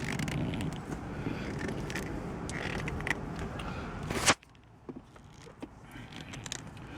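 Scraping and creaking as a MOMO shift knob is twisted and forced down over the shift lever and its rubber insert, ending in a sharp click about four seconds in. After that only a few faint clicks.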